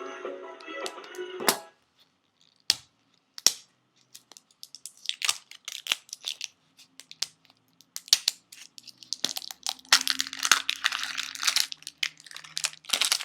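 Short burst of background music that stops about a second and a half in. It is followed by crinkling, tearing and scattered sharp snaps of wrapping as a candy-filled surprise Easter egg is opened by hand, getting busier in the second half.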